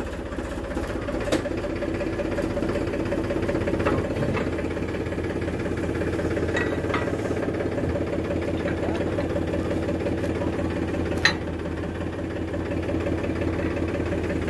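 Powertrac Euro 50 tractor's diesel engine idling steadily, with a few sharp metal clinks from the trailer drawbar and hitch pin being fitted, the sharpest about eleven seconds in.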